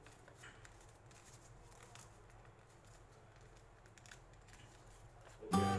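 Faint rustling and crisp little clicks of a sheet of paper being creased and folded by hand into a paper airplane. Music comes in suddenly near the end.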